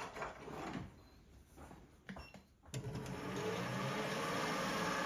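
A few light knocks, then about two and a half seconds in a small metal lathe starts up and runs steadily, with a flat file held against the spinning brass bearing blank to take its corners off.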